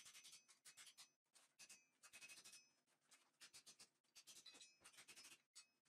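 Quiet, rapid hammer blows on a thin mild-steel armour plate against an anvil, shaping a gauntlet piece, in quick runs of strikes with short pauses between them. The steel gives a faint metallic ring.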